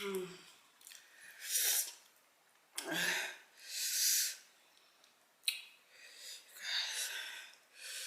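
A woman's sharp, hissing breaths in and out through the mouth, about five in a row, with a short voiced sound at the start and another about three seconds in. She is reacting to the burn of scorpion-pepper hot sauce.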